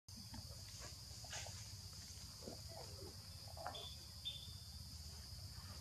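Faint, steady high-pitched drone of insects, with a few faint short calls or rustles scattered through it.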